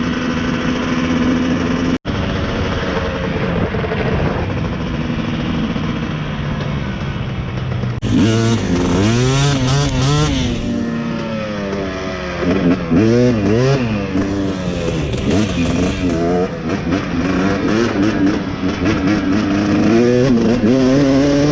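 Dirt bike engine running at a steady pitch, then from about eight seconds in revving up and down again and again as the throttle is opened and closed.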